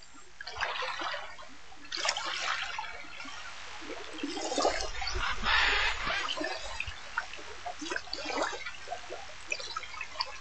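Water splashing and trickling in irregular bursts, with small drips and splash clicks between them.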